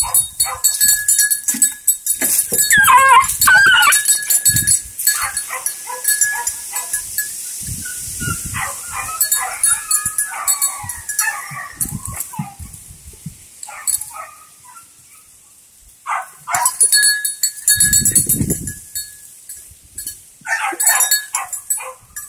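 Hound puppy whining and yelping in bursts while on a rabbit's scent, loudest about three seconds in and again midway.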